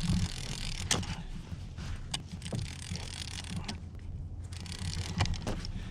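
Fishing tackle and kayak handling noise while a fish is being played: mechanical rattling with four or five sharp knocks, over a steady low rumble.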